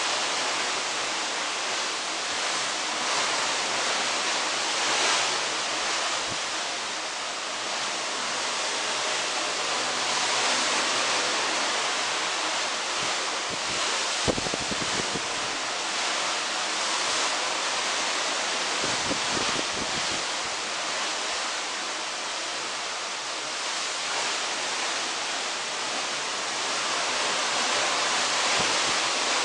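Steady rush of sea water streaming past a moving cruise ship's hull, mixed with wind, heard from a cabin balcony. A couple of brief low buffets of wind on the microphone come near the middle.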